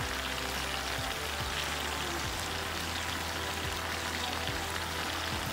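Pinakbet of vegetables and fried pork cooking in a pot, giving a steady, even sizzling hiss.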